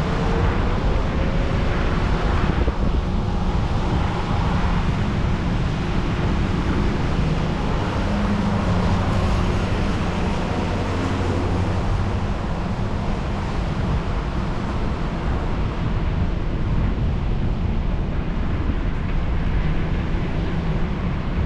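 Steady low rumble of a vehicle driving slowly, with wind buffeting the microphone.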